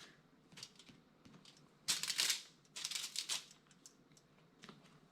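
Craft materials being handled on a table: scattered light taps and clicks, with two short rustling bursts about two and three seconds in.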